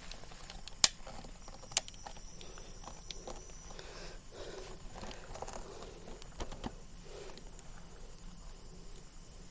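Camera handling noise: two sharp clicks in the first two seconds, then faint rustling and small scattered taps as the camera is held close against the body.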